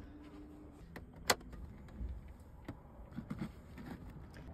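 The Eriba camping trailer's entrance door being opened: one sharp latch click about a second in, then a few light knocks and rustles.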